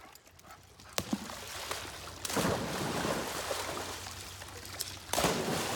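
Swimming-pool water splashing and sloshing, with a louder splash about five seconds in as a German shorthaired pointer leaps into the pool.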